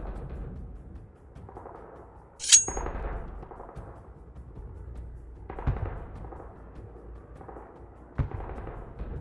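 A sharp metallic clang with a bright high ringing about two and a half seconds in, then two duller knocks, over a low background hum.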